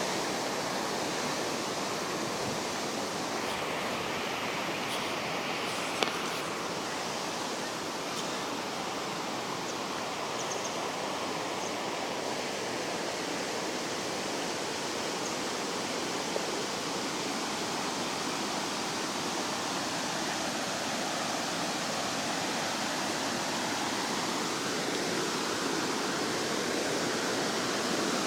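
Waterfall running with a full, strong flow of water, a steady rush. A single sharp click about six seconds in, and a fainter one later.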